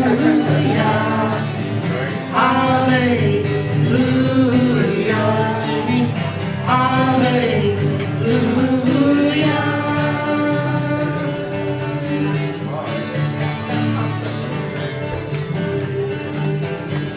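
Live worship song: a woman singing sliding, drawn-out melodic lines into a microphone over guitar accompaniment.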